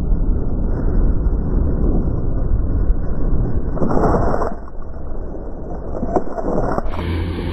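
Snowmobile crash at the start of a snowcross race, heard muffled and up close: a dense rumble of sled engines and thrown snow, then a louder rush about four seconds in as the rider goes down into the snow, followed by quieter scuffing and a few knocks. Just before the end the sound switches to the steady drone of racing snowmobile engines.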